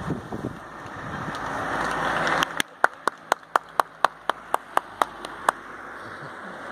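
Tyre hiss from a vehicle on a wet road, building over the first couple of seconds and stopping abruptly, then about a dozen sharp, evenly spaced clicks, roughly four a second, before the hiss starts to build again near the end.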